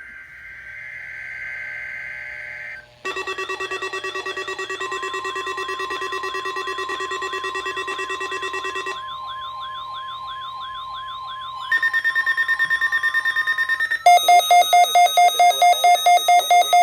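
Electronic emergency alert tones played over a radio broadcast during a weekly alert-system test. A short burst of buzzing data-like sound comes first, then a sequence of siren and alarm tones: a fast warbling wail, a slower wail, a steady pulsing beep, and finally a loud rapid pulsing beep with a rising sweep.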